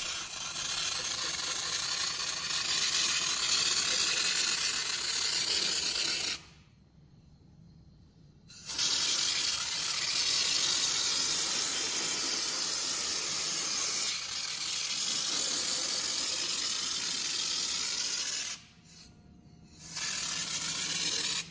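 Compressed-air underbody coating gun spraying a textured body coating from a screw-on can: a steady hiss that cuts off twice, for about two seconds roughly a third of the way in and for about a second near the end, as the trigger is released.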